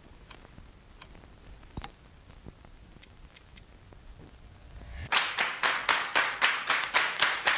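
A few scattered sharp clicks over faint hiss, then a short rising swell. About five seconds in, a beat of sharp clap-like hits starts at about four a second: the opening of an upbeat soundtrack.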